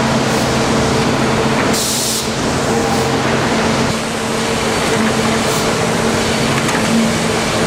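Sawmill conveyor and processing machinery running with a steady industrial hum and clatter. About two seconds in there is a short burst of hissing.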